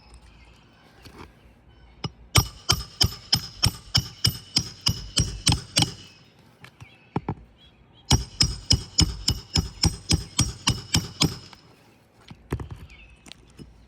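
Hammer striking in two fast runs of evenly spaced blows, about five a second, each blow ringing with a metallic tone, with a couple of stray knocks between and after the runs.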